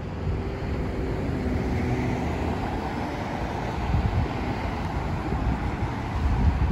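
Road traffic passing on the street beside the tracks, a steady rumble of car tyres and engines, with wind buffeting the microphone.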